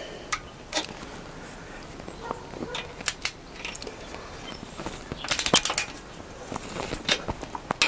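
Metal hand tools clinking and knocking on a tight engine mounting bolt: locking pliers come off and a socket and ratchet go on, with a quick run of ratchet clicks about five seconds in.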